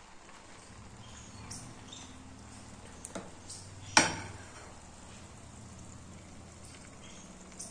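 Malpua batter frying in moderately warm oil in a pan, with a faint steady sizzle. A few small clicks come about three seconds in, then one sharp, loud click just after four seconds.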